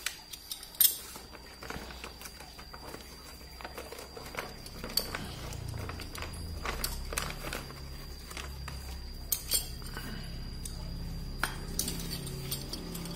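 Metal 1.9-inch RC crawler beadlock wheels clinking and knocking as they are handled and set down in their foam trays, with scattered sharp clicks and the rustle of plastic packaging.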